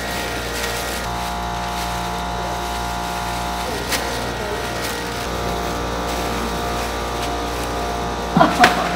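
A steady hum of sustained tones with faint voices underneath, and a few sharp knocks and rustles near the end as bagged mullet roe is handled into plastic crates.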